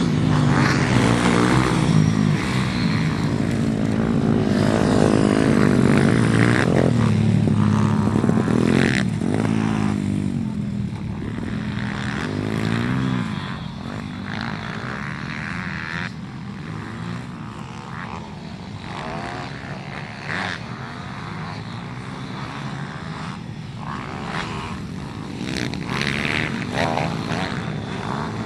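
Pit bike engines revving up and down as several bikes ride round a dirt track, the pitch rising and falling with each throttle change. Louder for the first dozen seconds or so, then fainter.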